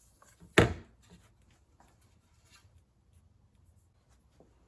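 A single sharp knock about half a second in, then faint rubbing and small handling ticks: work handling of a PVC pipe and tools at a bench.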